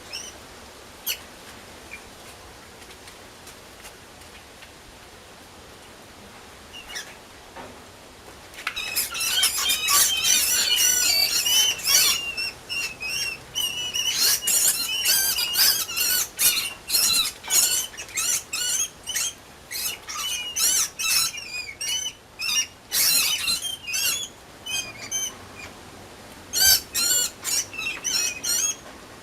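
A mouse squeaking: many short, high-pitched squeaks in quick runs, starting about nine seconds in after a faint hiss, with brief gaps between runs.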